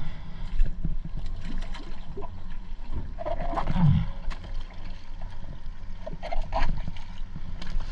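A spearfisher in fins slipping off a boat's stern into the sea: water sloshing, splashing and gurgling around the action camera, with scattered knocks and a steady low rumble underneath.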